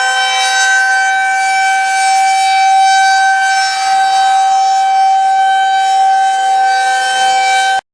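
Outdoor tornado warning siren sounding a loud, steady tone that holds one pitch. The sound cuts off suddenly near the end.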